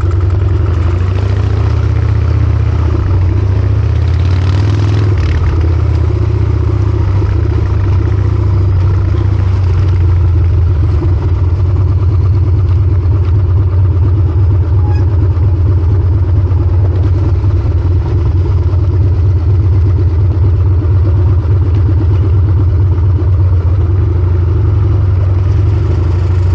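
Harley-Davidson Sportster XL1200C's air-cooled 1200 cc V-twin running steadily and loudly through a short open exhaust pipe while the bike is ridden.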